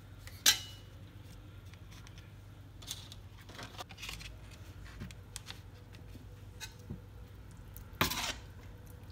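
Dry, oven-ready lasagne sheets being laid by hand into a ceramic baking dish: light taps and clicks of the stiff pasta against the dish. There is a sharper knock about half a second in and another near the end.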